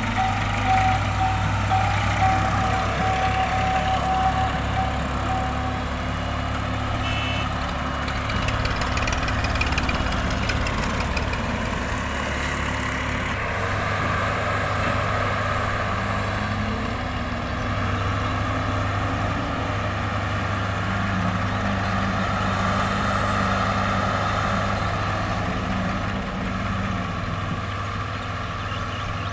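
Diesel engines of a wheeled EX100 excavator and a farm tractor running steadily as the excavator loads soil into the tractor's trolley. A high, broken beeping tone sounds during the first several seconds.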